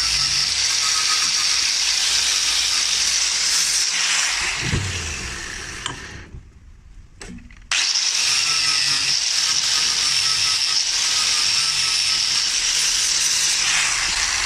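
Angle grinder running with a steady high whine, winding down about five seconds in, then switched on again abruptly a couple of seconds later and running on.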